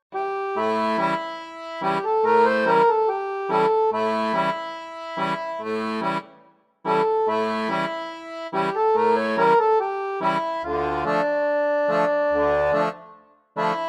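Background accordion music: a tune played over a regular bass-and-chord pattern. It stops briefly about six seconds in and again just before the end.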